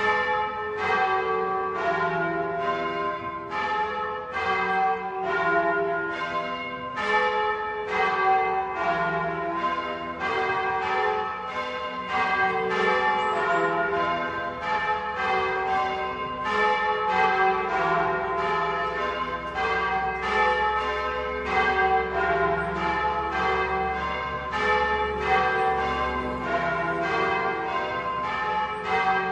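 A peal of Bolognese church bells: several bells ringing in quick succession, about two to three strokes a second, in a continuous changing pattern.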